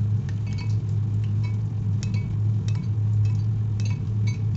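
Banana fritters frying in hot oil in a pan: scattered light pops and clinks, several a second, over a steady low hum.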